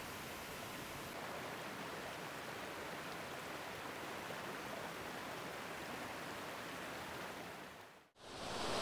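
Steady rushing of waterfalls and a stream pouring over rock. It fades out briefly near the end, then comes back louder.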